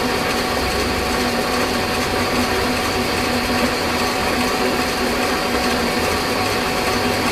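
Metal lathe running steadily with a carriage bolt spinning in its chuck: a constant mechanical whir with a few steady hums over it, even throughout.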